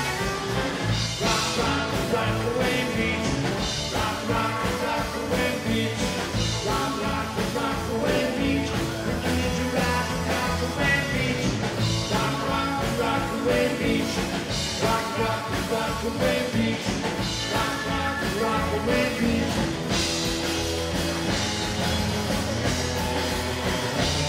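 Rockabilly band playing live: electric guitar, acoustic guitar, upright bass and drum kit, with a steady driving beat.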